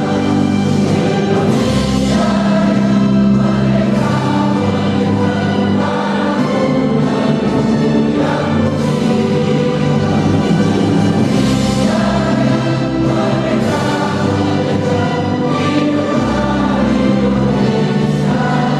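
A choir singing with instrumental accompaniment, sustained and full throughout.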